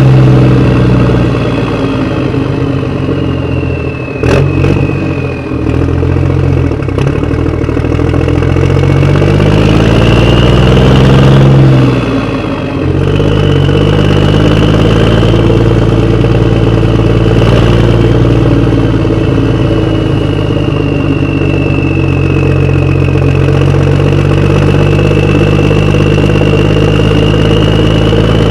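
A vehicle engine running, its pitch slowly rising and falling as it revs up and eases off, with a few sharp clicks about four seconds in.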